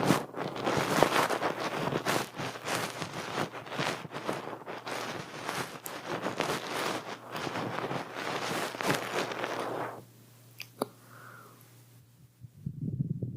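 Cotton-tufted ear pick rubbing on the microphone in ASMR ear cleaning, giving a close, scratchy crackling that stops suddenly about ten seconds in. A few sharp clicks follow, and a softer, lower rustling starts near the end.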